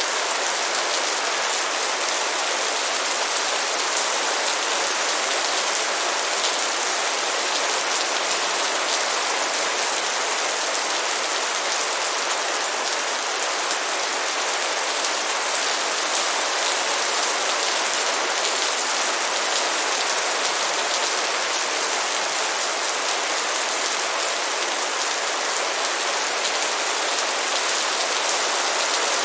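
Light rain falling steadily on a surface, an even dense patter of drops with no let-up.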